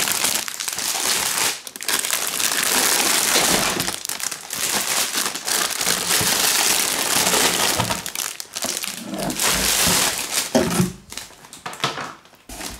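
Cellophane wrapping on packs of partwork magazines crinkling as they are handled and lifted out of a cardboard box. The crinkling is dense and continuous for about eight seconds, then comes in shorter bursts and dies down near the end.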